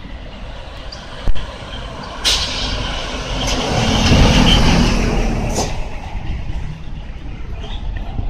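A road vehicle drives past close by: its engine and tyre noise swells to a peak about four seconds in and then fades, over a steady low traffic rumble. A single short sharp click sounds a little over a second in.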